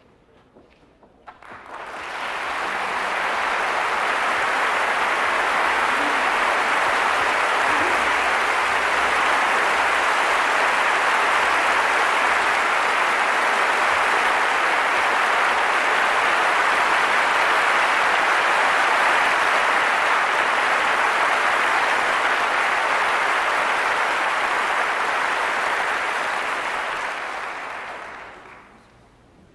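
A concert hall audience applauding, starting about a second and a half in, swelling quickly to a steady level and dying away near the end.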